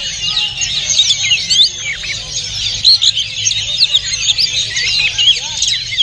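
Oriental magpie-robin singing amid a dense chorus of other caged songbirds: a continuous, overlapping stream of quick rising and falling whistles and chirps.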